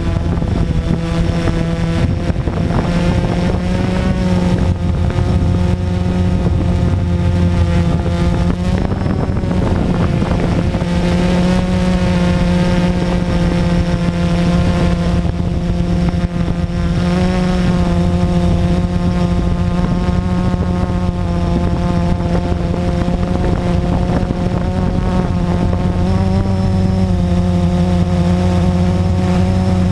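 Blade 350QX quadcopter's four brushless motors and propellers buzzing in flight, heard close up from the drone's onboard camera. It is a steady hum of several tones that waver and shift in pitch every few seconds as the throttle changes.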